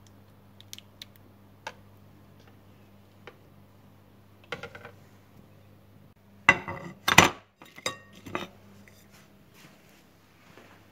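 Kitchenware clattering: scattered light clicks, then a loud burst of knocks and clinks about six and a half seconds in, with a few more a second later, over a low steady hum.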